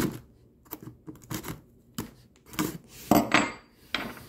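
A blade slitting the packing tape on a cardboard box, with the cardboard scraped and handled: a string of uneven scraping and rasping strokes, the loudest about three seconds in.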